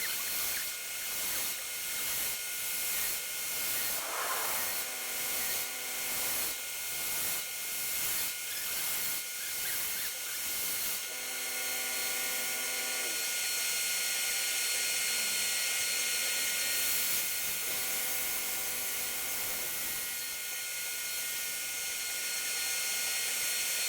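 CNC router cutting wood: a steady high hiss from the spindle and bit, pulsing a little more than once a second through the first half, then running evenly, with short stretches of steady whining tones coming and going.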